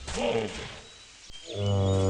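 An animal calling: a short rising-and-falling cry at the start, then, about one and a half seconds in, a long, low, steady call begins.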